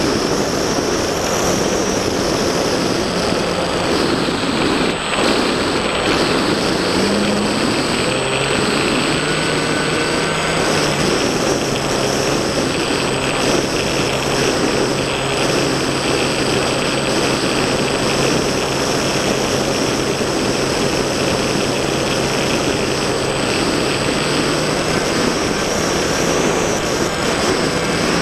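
Radio-controlled model airplane's motor and propeller droning steadily, heard from a camera on board, under a heavy rush of wind noise. The pitch of the drone steps down about a third of the way in and rises again near the end as the throttle changes.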